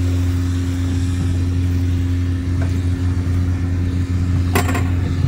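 An engine running steadily with a low, even hum; a short click about four and a half seconds in.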